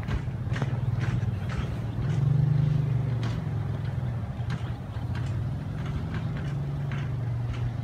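DJI F450 quadcopter's brushless motors (2217, 950 kV) and propellers droning in flight, a low steady hum that swells and rises a little in pitch about two seconds in, then settles. Faint sharp ticks are scattered through it.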